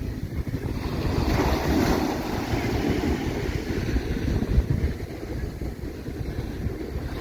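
Sea surf washing on a beach, with wind buffeting the microphone in low gusty rumbles; a wave swells up about a second in.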